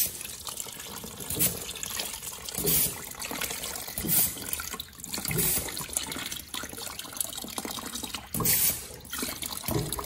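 Water gushing from the end of a drain hose onto a mesh net and into a plastic tub, in repeated surges. It is water and loose sediment from an electric water heater tank being drained by shots of compressed air.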